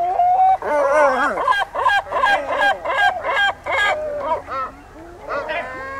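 Great black-backed gull giving its deep, loud long call: a drawn-out opening note, then a rapid series of short calls at about three a second that fade away, with another call starting near the end.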